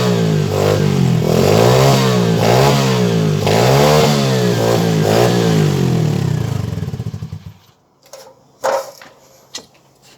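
125cc pit bike's single-cylinder four-stroke engine being blipped, the revs rising and falling about once a second, then switched off and running down about seven seconds in. A few sharp clicks follow.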